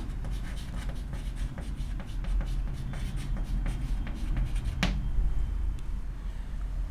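Someone writing by hand: a run of quick scratching strokes, then a single sharp tap about five seconds in, over a steady low hum.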